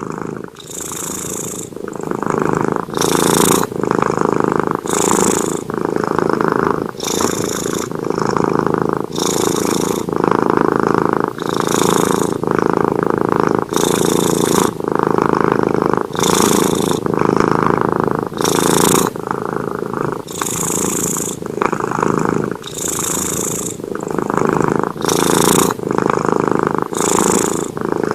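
Domestic cat purring loudly and steadily close to the microphone, the rumble swelling and easing with each breath, about one breath every two seconds.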